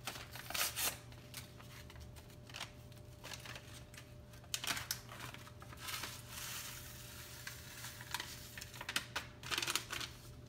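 Paper seasoning packet of French onion soup mix rustling and crinkling in short bursts as it is torn open and shaken out, over a faint steady low hum.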